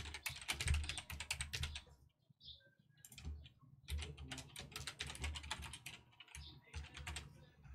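Typing on a computer keyboard: quick runs of key clicks, with a pause of about a second roughly two seconds in before the typing resumes.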